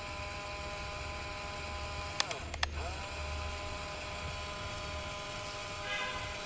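Small electric motor of a toy remote-control crane whining steadily. About two seconds in, a few sharp clicks come as the motor's pitch drops away and then rises back up, as if it stops and starts again.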